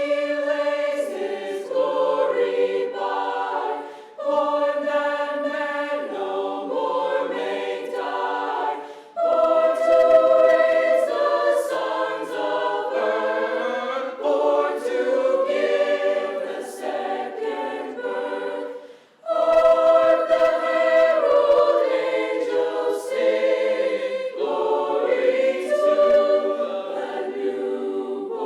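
A school choir singing a holiday song in parts, holding long notes in phrases with brief breaths about four, nine and nineteen seconds in.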